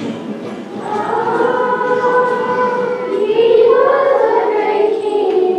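Children's choir singing, holding long drawn-out notes.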